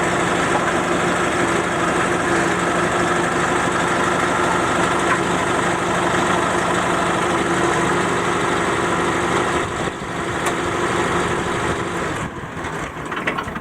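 Forklift engine running steadily with a sustained even-pitched hum while the mast hydraulics lift, dropping off sharply about twelve seconds in.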